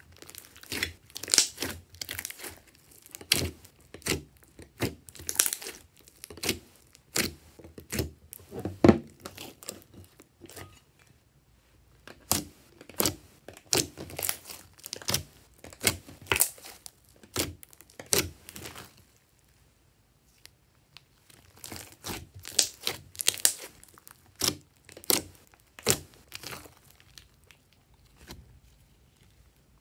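Hands kneading, poking and stretching a large mass of glossy slime: irregular sticky pops and crackles in clusters, with two short pauses and a quieter spell near the end.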